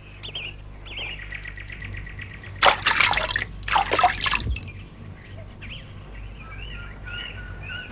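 Birds chirping steadily, with two short splashes of water about three and four seconds in, as water is poured over washed utensils into a bucket.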